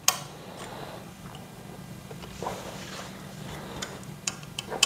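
Allen key clicking and clinking against metal screws as they are tightened down, with a sharp click at the start, a soft rustle midway and a few quick clicks near the end.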